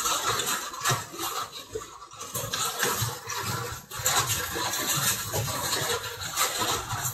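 A drawing pencil scratching over paper in quick shading strokes, heard close up as an uneven scratching hiss that breaks off briefly about two and four seconds in.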